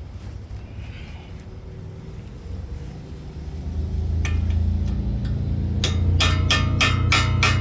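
Sledgehammer on a steel chisel, beating a stuck hub assembly out of a 2018 Ram 5500. There is one blow about four seconds in, then a quick run of ringing steel-on-steel blows, about three a second, near the end, over a low rumble.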